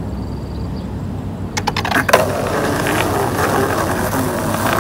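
Skateboard wheels rolling on rough concrete, a steady rumble that grows louder as the board comes closer, with a few sharp clacks about two seconds in.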